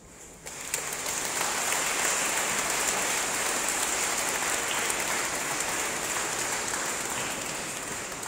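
Congregation applauding: clapping breaks out about half a second in, holds steady and eases slightly near the end.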